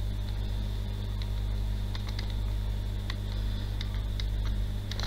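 Steady low electrical hum, with a few faint light ticks from a stylus or pen tool as a word is handwritten on a screen.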